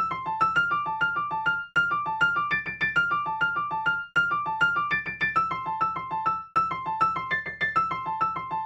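Background music on a keyboard: quick single notes, about five a second, in a repeating figure. The phrases last about two seconds, with a short break between them.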